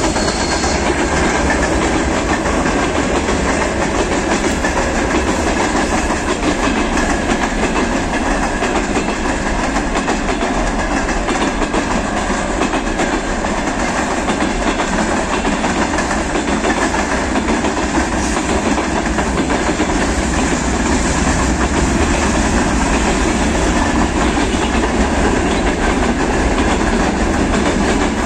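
Wagons of a long Russian freight train (open wagons, covered grain hoppers and container flatcars) rolling past, wheels running on the rails in a steady, loud, unbroken rumble.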